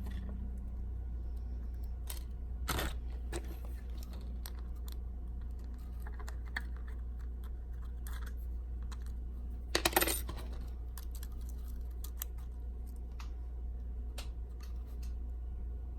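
Small sharp clicks and taps of tools and small parts being handled while an iPhone is put back together, over a steady low electrical hum. The loudest is a short cluster of clicks about ten seconds in.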